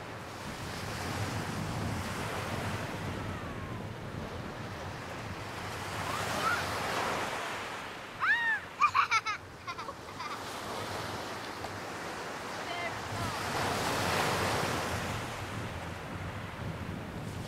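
Small waves breaking and washing up over a sand-and-shingle shore, the surf swelling and ebbing in slow surges. About halfway through comes a short burst of several high squeals.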